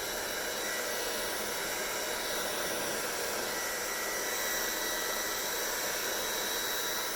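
Hair dryer running steadily: an even rushing blow of air with a faint high motor whine.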